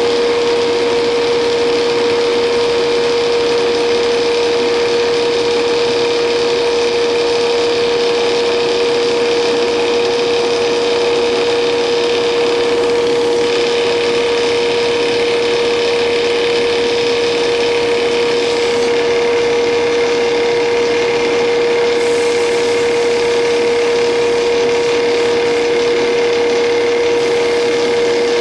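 Intorex CI 1500 hydraulic copy lathe running with a wooden baseball bat spinning in it: a loud steady machine hum with one constant tone, and a hiss above it whose higher part changes a few times.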